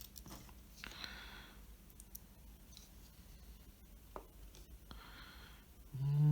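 Quiet workbench with a few faint small clicks. A soft breath comes about a second in and again near five seconds, and a short hummed 'mm' from the person at work comes near the end.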